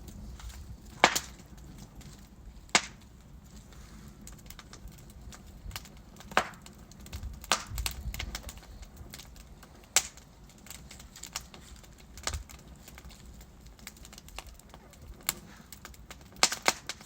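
Wood fire with burning logs crackling: sharp pops and snaps at irregular intervals over a low steady rumble of flame.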